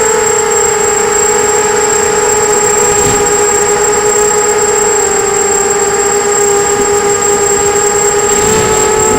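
Brushless motors and propellers of a 250-size FPV quadcopter, whining steadily in flight: several close pitches that drift slightly, with a thin high steady tone over them.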